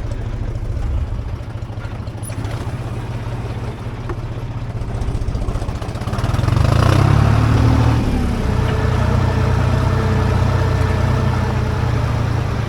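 Engine of a self-propelled fruit-picking machine running as it drives through the orchard row. It gets louder about six seconds in, and from about eight seconds on a steady whine runs over the engine.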